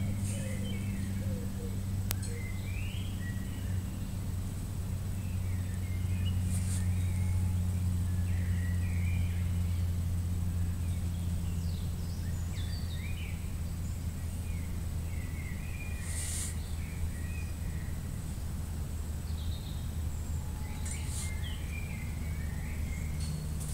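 A steady low hum runs throughout, with short chirping calls, like small birds, coming now and then.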